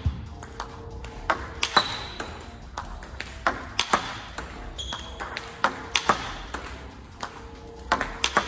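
Table tennis ball clicking sharply, about two or three times a second at uneven spacing, as it bounces on the table and is struck down by the paddle in repeated forehand smashes.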